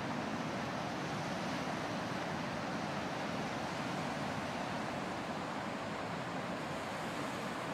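Steady wash of surf on the beach, an even rushing noise that holds at one level throughout, without distinct breaking waves standing out.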